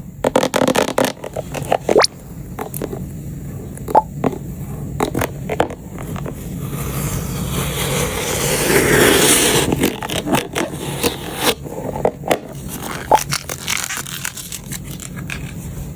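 Batteries clicking and clacking as they are handled and set one at a time into a storage case. A longer rustling scrape swells around the middle, loudest about nine seconds in.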